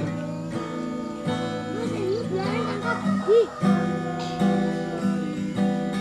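Acoustic guitar being strummed, chords ringing one after another.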